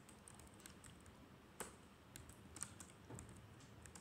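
Faint computer keyboard typing: a run of uneven single keystrokes as a word is typed out letter by letter.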